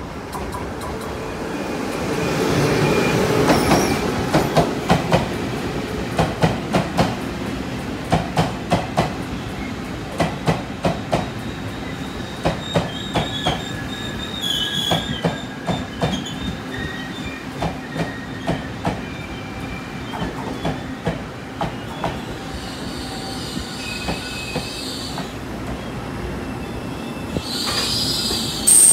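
Taiwan Railways E1000 push-pull Tze-Chiang trainset rolling in along the platform as it enters the station: wheels clicking over the rail joints, mostly in pairs, over a steady rumble, with wheel squeal now and then. Near the end a sudden loud high-pitched sound cuts in, with a falling whistle.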